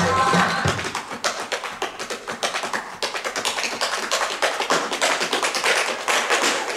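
Tap shoes striking the stage floor in quick, uneven runs of taps, danced without accompaniment. A bit of music with a heavy bass cuts off within the first second.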